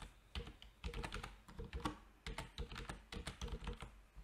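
Computer keyboard being typed on: a quick, uneven run of keystrokes.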